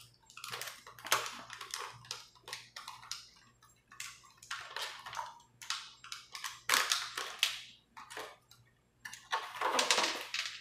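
Clear plastic blister packaging crackling and crinkling in irregular bouts as it is handled and pried open, loudest near the end.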